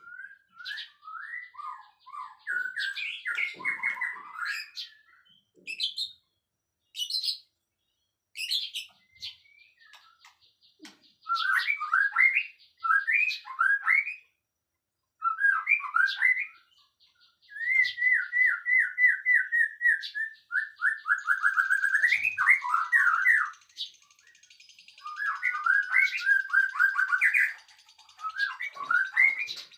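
Songbirds chirping and singing in repeated short phrases and quick trills, in bouts with brief gaps between them. A thin, high, buzzing trill runs underneath in places.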